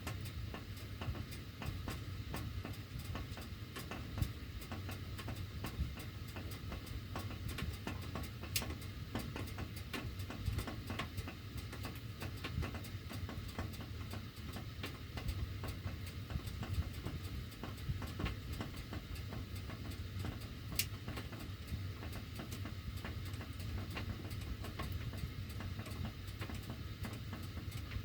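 Heating ductwork ticking and clicking irregularly while the heat is running, over a steady low hum. A few sharper clicks stand out, one about eight seconds in and one about twenty-one seconds in.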